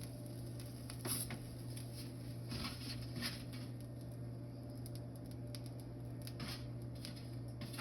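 Soft scattered taps and scrapes of a metal pan being worked under a pizza on a hot pizza stone, over a steady low hum.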